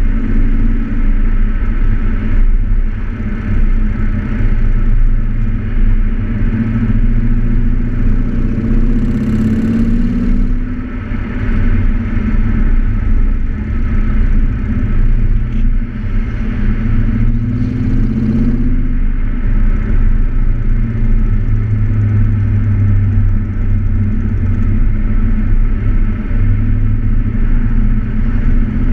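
Audi RS4 exhaust with the precats and resonator deleted, heard right at the tailpipe while driving. The engine runs steadily, with two rising pulls, about nine seconds in and again around eighteen seconds, each followed by a short dip.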